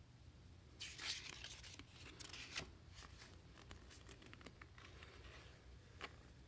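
Faint rustling and tearing of product packaging being opened for about two seconds, followed by a few light clicks and taps as it is handled.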